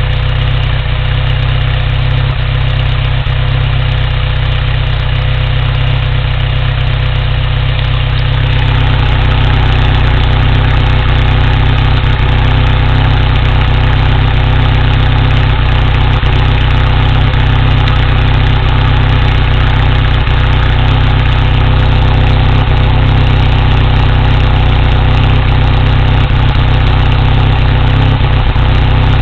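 Toyota 22RE 2.4-litre four-cylinder engine in a 1987 4Runner idling steadily, which the owner suspects of a misfire. About eight seconds in it gets somewhat louder, with more mid-range sound.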